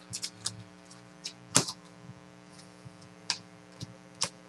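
Trading cards being handled and sorted on a table: irregular sharp clicks and taps, the loudest about a second and a half in, over a steady low electrical hum.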